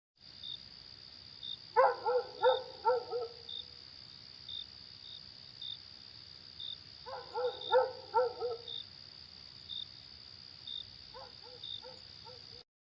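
Night ambience of crickets chirping steadily, with a dog barking in three short runs of four or five barks. The whole soundscape cuts off suddenly near the end.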